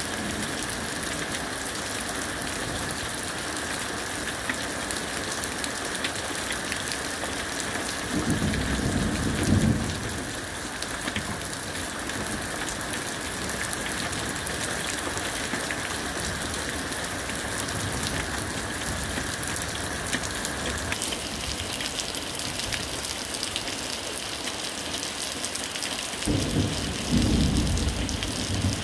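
Steady rain of a night thunderstorm falling, with two low rolls of thunder lasting a second or two each: one about a third of the way in and one near the end.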